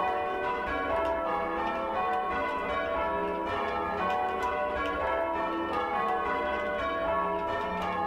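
A ring of six church bells, a 16 cwt ring with its tenor in E, ringing full-circle changes in a steady run of strokes with no pause. The tenor is oddstruck, which the ringer calls heinous. Heard from the ringing chamber beneath the bells.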